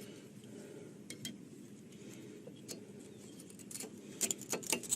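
Light metallic clicks and clinks of brake parts being handled as new pads are fitted into the caliper bracket, a few scattered at first and a quick cluster near the end, over a faint low background hum.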